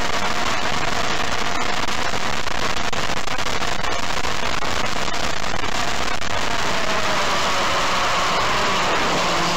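DJI Phantom quadcopter's electric motors and propellers running in flight, heard right beside them from the onboard camera as a steady whine over a rushing noise. The tone shifts a little in the second half as the drone turns.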